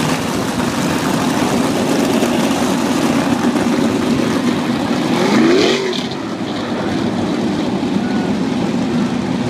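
Engines of several open-wheel dirt-track race cars running together. About halfway through, one engine revs up, rising in pitch, and this is the loudest moment.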